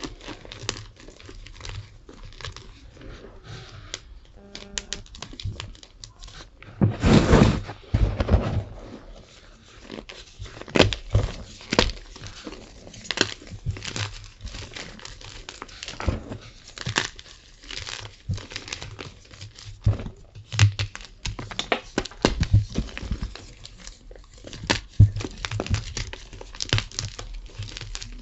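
Tie-dyed gym chalk being crushed and crumbled, a run of crisp crunches and crackles, with a longer, louder crumble about seven seconds in.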